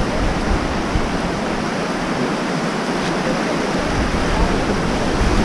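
Whitewater rapids rushing steadily around an inflatable raft: a continuous hiss of fast, churning river water.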